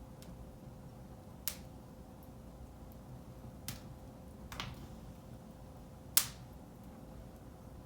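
Wood fire burning in a fireplace, crackling with a few scattered sharp pops. The loudest pop comes about six seconds in, over a low steady rumble.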